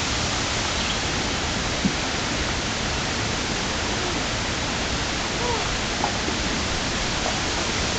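Steady rush of shallow river water running over a rocky riffle.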